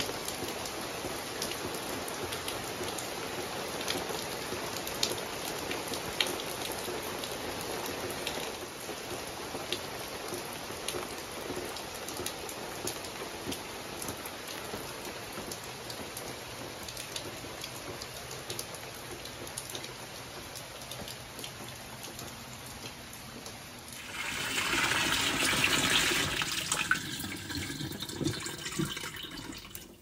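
Steady rain falling under the eaves, with scattered louder drips. About six seconds before the end it cuts to a louder rush of water running into a pot of beans, which fades out.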